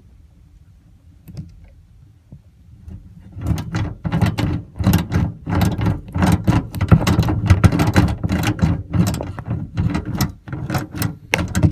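Hand tool undoing the bolts that hold the liftgate handle and sensor switch, heard as rapid, irregular metallic clicking and rattling that starts about three and a half seconds in, after a quiet spell.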